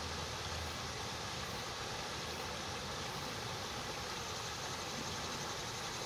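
Cicadas calling in one steady, unbroken buzzing drone with a fine rapid flutter in it.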